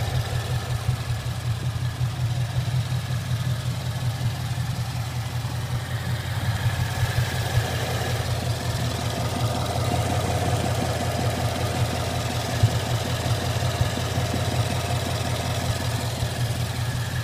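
Ford Mustang GT V8 engine idling steadily with a rapid, even knocking in its note, the knocking noise that the owner is worried about. One sharper tick stands out about two-thirds of the way through.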